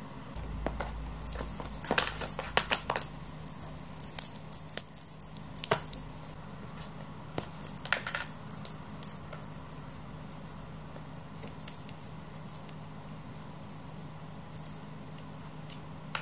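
Cat toys jingling and rattling as the cats bat at them: irregular light clicks and high jingles, busiest in the first half and coming in scattered bursts later, over a faint steady hum.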